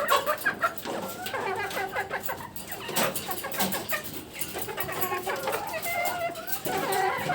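Caged chickens clucking and calling, with many short sharp clicks among the calls.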